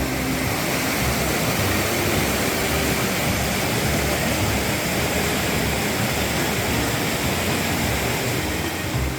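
Rushing water of a mountain stream: a steady, dense hiss of water running over rocks.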